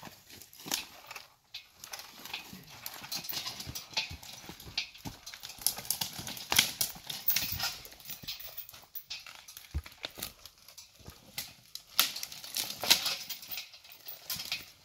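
Dry twigs and brush crunching and snapping in irregular crackles under footsteps and the tyres of a steel logging arch pulled by hand through forest slash.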